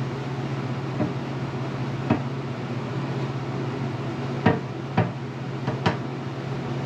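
A few short, sharp clicks and light knocks of tools and parts being handled, over a steady low hum.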